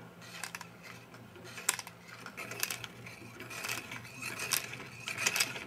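Hand-cranked model Geneva drive in a film projector mechanism clicking and rattling as it indexes the film strip one frame at a time, with light clicks about once a second.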